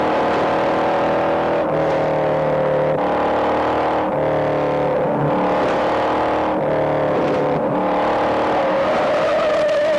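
V8 muscle-car engines running hard at speed, their pitch breaking off and picking up again every second or so.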